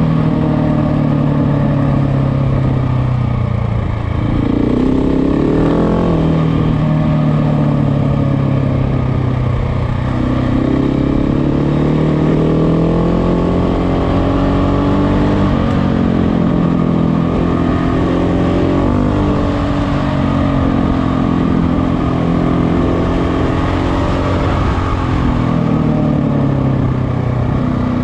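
KTM motorcycle engine running under way, its revs climbing and dropping back several times as the rider works the throttle and gears.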